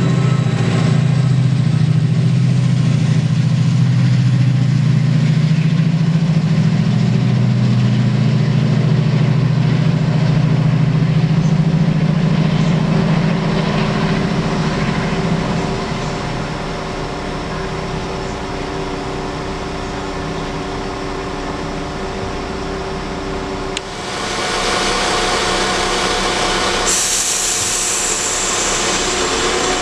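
Class 68 diesel locomotive's V16 engine passing close by with a heavy, steady drone that fades away. About 24 seconds in, a Class 172 diesel multiple unit is heard idling at the platform, with a loud hiss near the end.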